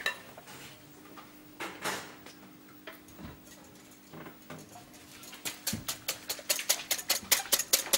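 Kitchen knife chopping quickly on a cutting board: a few scattered knocks, then from about the middle a rapid run of sharp cuts, around seven a second. A faint steady kitchen hum sits beneath.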